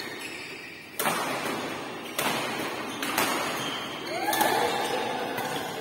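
Badminton rackets striking a shuttlecock in a doubles rally: sharp strokes about a second apart, each trailing off in the hall's echo, followed near the end by a drawn-out rising tone that then holds steady.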